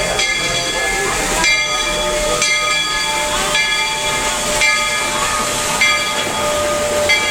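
Steam locomotive's bell ringing about once a second over the hiss of steam as the train pulls into the station.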